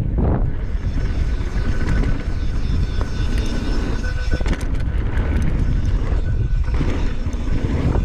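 Wind rumbling on the microphone of a camera riding along on a mountain bike, with tyre noise on the dirt trail and a few sharp clicks and rattles from the bike.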